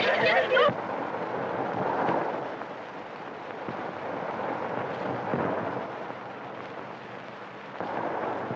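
A railway train running: a steady rumbling noise that swells and fades slowly, heard through the hiss of an old film soundtrack.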